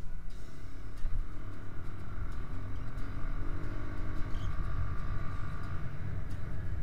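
Motorcycle engine running while riding, nearly buried under a heavy, steady rumble of wind buffeting the microphone.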